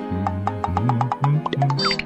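Bouncy cartoon background music: a low bass line under short, quickly repeated notes.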